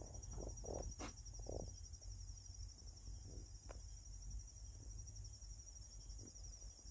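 Crickets chirping in a steady, high, pulsing chorus over a low steady rumble, with a sharp click about a second in.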